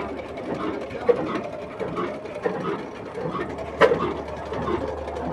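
Old 12 hp horizontal diesel engine running slowly, with a steady low hum and a knock roughly twice a second, one sharp crack about four seconds in.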